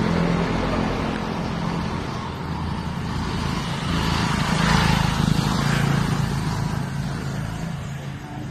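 A motor vehicle engine running, a low steady hum that grows louder about five seconds in and then fades near the end, as of a vehicle passing by.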